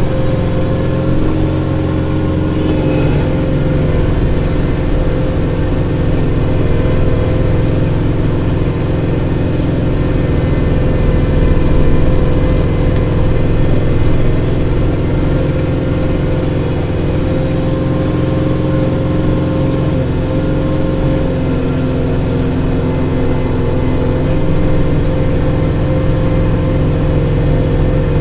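Kubota diesel tractor engine running steadily at working speed, swelling briefly about twelve seconds in.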